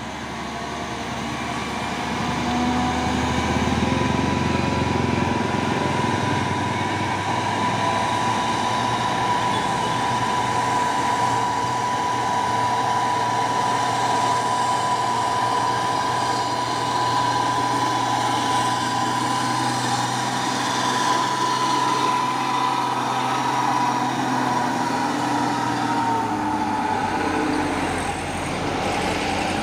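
Mitsubishi Fuso tanker truck's diesel engine pulling slowly uphill under load, a steady heavy drone with a steady high whine over it.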